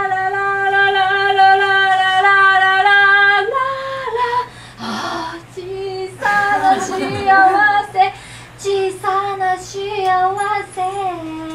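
A woman singing solo. She holds one long steady note for about three and a half seconds, then after a short breathy hiss sings a run of shorter notes.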